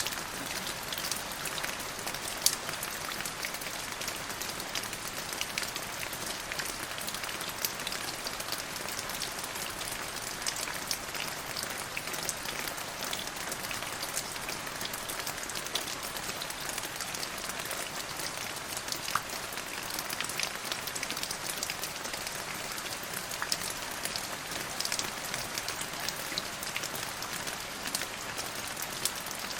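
Steady rain falling on a hard surface: a dense, even hiss dotted with many separate drops ticking, one of them louder about two and a half seconds in.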